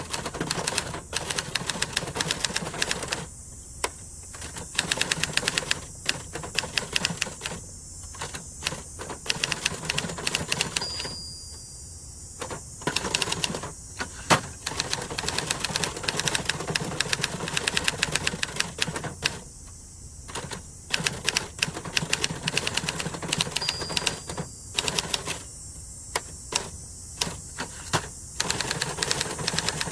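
Adler Gabriele 25 manual typewriter being typed on: rapid runs of key strikes clacking against the platen, broken every few seconds by brief pauses.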